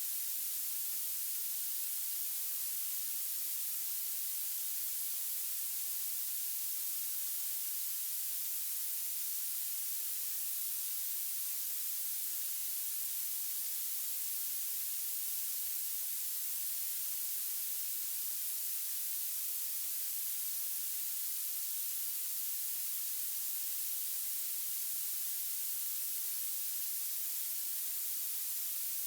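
Violet noise: a steady, sharp hiss that is strongest in the very highest pitches and has almost no low sound in it.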